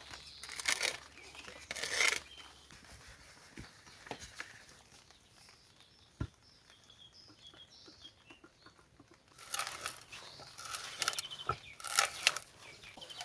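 Rustling, crinkling handling noises in two spells, at the start and again from about nine and a half seconds on, with a quieter stretch between them where faint bird chirps and a single sharp click are heard.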